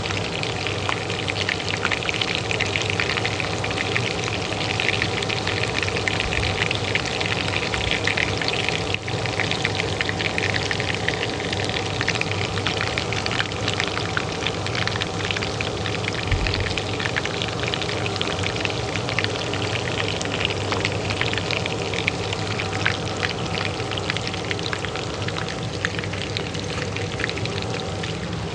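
Hot oil sizzling in a pan with a dense, constant crackle of small pops, over the steady hum of a kitchen range hood fan.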